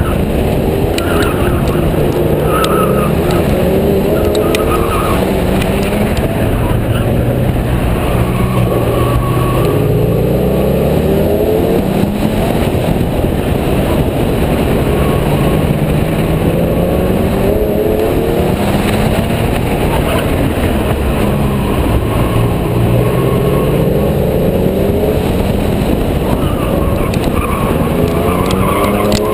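Porsche Carrera GTS's flat-six engine revving hard on an autocross run, its pitch climbing and dropping again and again as the car accelerates and backs off between the cones.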